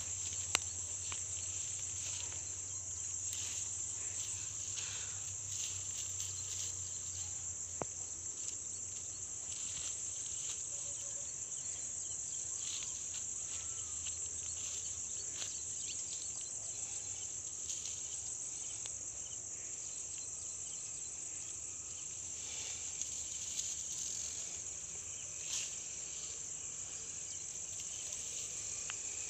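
A steady, high-pitched insect chorus, with occasional light rustles and clicks from hands working a mesh bag on dry grass.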